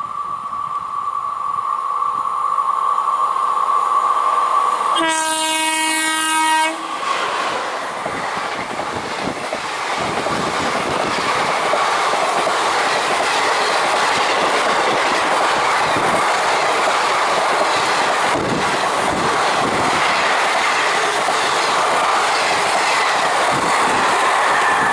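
Express train hauled by a WAP-4 electric locomotive passing at high speed: a steady high tone as it approaches and grows louder, a horn blast of about two seconds some five seconds in, then the loud rush and rhythmic wheel clatter of the coaches going by.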